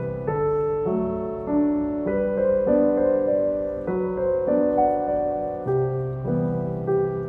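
Background piano music: a slow melody over held chords.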